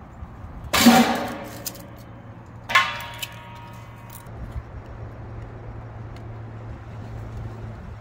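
Two pieces of split wood dropped into a stainless steel fire pit, each landing with a clang and a brief metallic ring, about two seconds apart.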